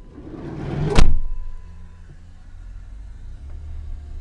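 A rising rush ending in a loud shutting thud about a second in, followed by the low, steady rumble of the vehicle's engine and road noise as it drives on.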